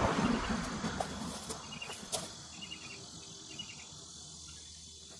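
Rustling and crunching as a person moves through a river-rock bed and brushes past a hedge, loudest in the first second and fading away, with a few sharp clicks. Faint insect chirping repeats in the background.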